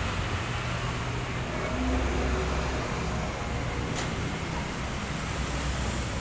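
Steady low background hum, with one sharp click about four seconds in as a screwdriver touches the sheet-metal side frame of a Canon iR copier.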